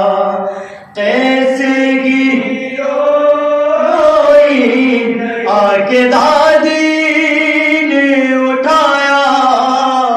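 Unaccompanied men's voices chanting a soz-marsiya lament in Urdu: a lead reciter at a microphone with a group of supporting voices singing along, in long held, wavering notes. There is a short breath pause about a second in.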